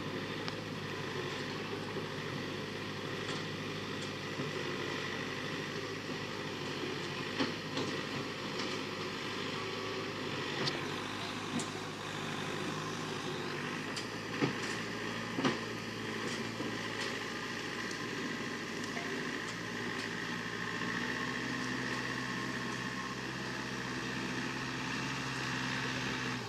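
Tractor engine running steadily as it pulls a loaded trailer through a river ford, with a few sharp knocks and clatters. About three-quarters of the way through, the engine note changes and grows heavier as the tractor climbs out onto the far bank.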